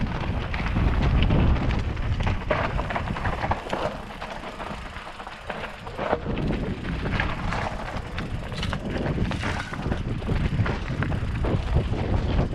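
Mountain bike riding over a rocky trail: tyres knocking and crunching on rock and the bike rattling in many short knocks, with wind rumbling on the microphone.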